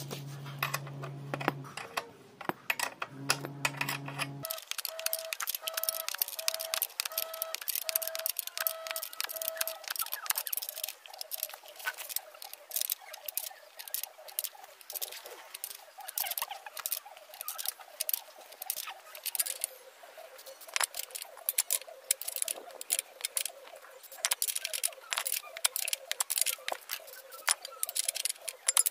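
Ratchet wrench clicking as it turns the threaded rod of a bush puller, drawing the engine mounting (foundation) bush out of a Honda Activa scooter engine; dense short metallic clicks, several a second.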